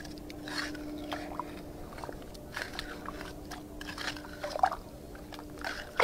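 Small plastic trowel digging and scraping into wet, gritty beach sand, a string of short irregular crunching scrapes.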